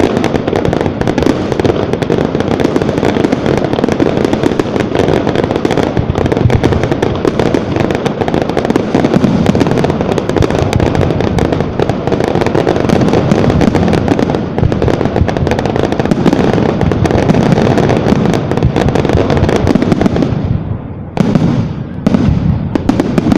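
Fireworks display: a dense, continuous barrage of bangs and crackling. About twenty seconds in it thins out to a few separate bangs.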